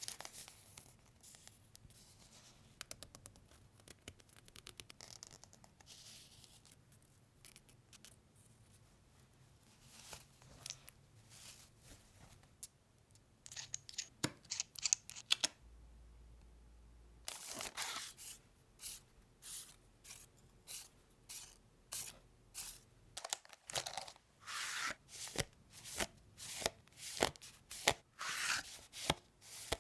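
Scissors snipping and paper tearing as craft stickers and paper are handled close to the microphone. The strokes are sparse and quiet at first, then about halfway through they become a steady run of crisp snips, one or two a second.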